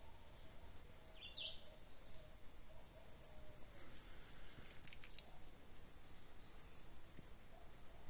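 Wild birds calling in forest: several short high chirps, and a fast, high-pitched trill about three seconds in that lasts about a second and a half and is the loudest sound.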